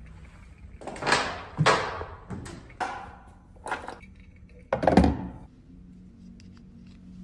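A door being opened and shut after a card-reader unlock: a run of knocks and clunks over about four seconds, the loudest near five seconds in.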